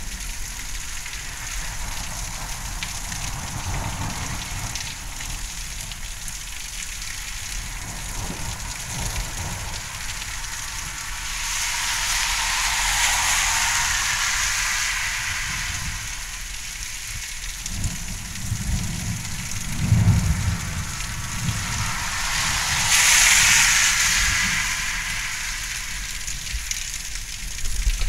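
Heavy thunderstorm rain falling steadily as a hiss, swelling twice into louder downpours, with a low rumble of thunder in between.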